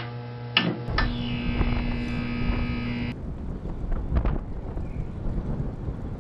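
A steady chord of several held tones that cuts off abruptly about three seconds in, followed by wind rumbling on the microphone with a few light clicks.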